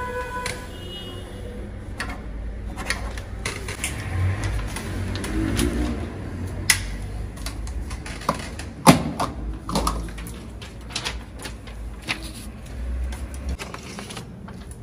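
Irregular clicks and taps of a computer keyboard being typed on, over a low steady background rumble, with one louder knock about nine seconds in.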